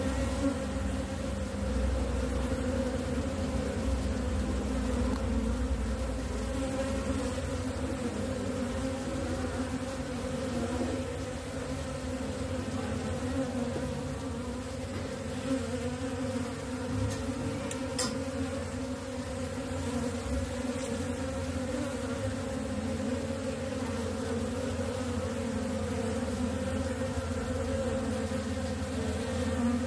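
Honey bees of a colony buzzing in a steady, even hum over the open hive's top bars.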